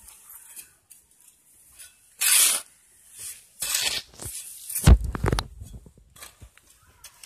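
Gritty scraping of a sand, soil and chicken-manure mix being turned over in several short strokes, with a heavier thud about five seconds in.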